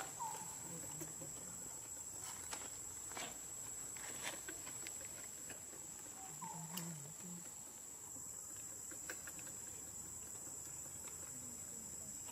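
A steady high-pitched insect drone, with scattered light rustles and clicks in dry leaves and two short squeaks, one at the start and one about seven seconds in.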